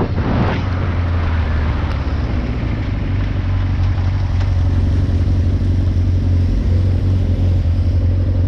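Motorcycle engine running at a steady cruise, a low even drone under wind and road noise. A rush of wind or spray fades out within the first second.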